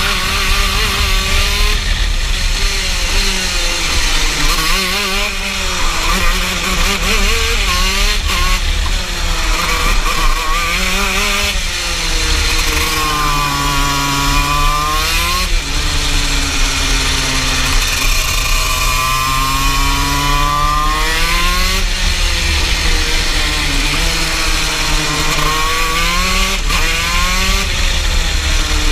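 TM KZ10B 125 cc two-stroke shifter-kart engine heard from the driver's seat at racing speed, its revs repeatedly climbing and dropping as the kart accelerates and slows through the corners, with gear changes.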